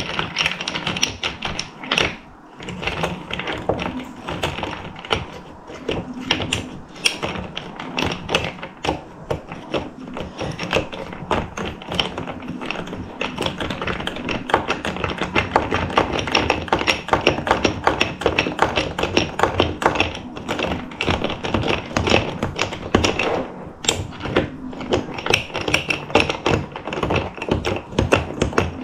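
A spoon stirring iced coffee with ice cubes in a tall glass, clinking rapidly and continuously against the glass and ice.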